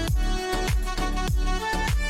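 Background music with a steady beat: deep bass drum hits that fall in pitch, about three a second, under sustained melodic notes.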